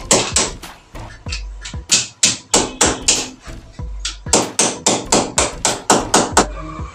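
Hammer driving small nails into a plastered wall to fasten electrical wiring. Sharp metallic taps come about four a second, in runs of several strikes with two short pauses.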